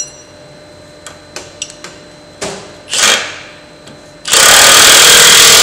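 Cordless impact wrench hammering nuts tight on an auger's stub shaft: a short burst a little under three seconds in, then a longer, loud run from about four seconds in through the end, the fastener tightening up.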